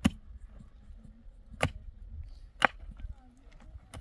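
Pickaxe striking dry earth while digging a foundation trench: four sharp strikes, roughly a second or so apart, over a low rumble.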